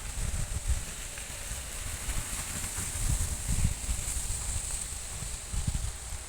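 Irregular low rumble on the microphone, coming and going in gusts, with rustling of forest undergrowth and a steady high hiss.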